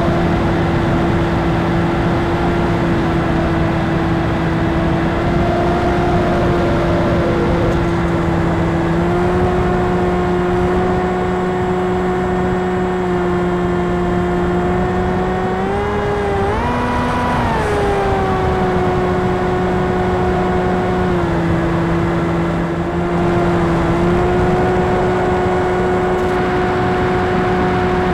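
Electric brushless motor and propeller of an RC plane whining steadily over a rush of wind, as heard from a camera on board. The pitch steps up about a third of the way in, surges briefly just past the middle, drops about three quarters of the way through and rises again near the end as the throttle changes.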